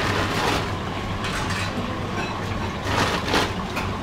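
Large noodle-boiling vat at a rolling boil under a steady low hum, with a few short splashes and clinks as udon is handled in a strainer basket in the water.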